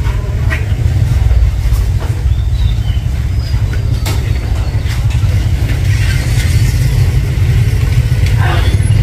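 Steady low rumble of outdoor street noise, with faint voices now and then.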